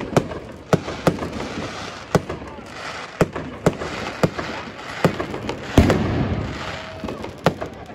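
Aerial fireworks shells bursting overhead: an irregular series of about a dozen sharp bangs with a rumble between them, the loudest about six seconds in.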